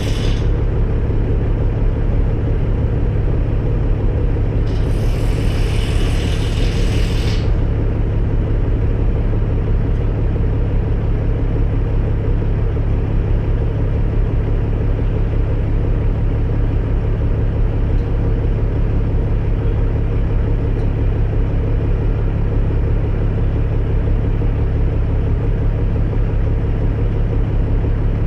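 Heavy diesel engine running steadily at a constant speed, with a hiss lasting about two seconds starting about five seconds in.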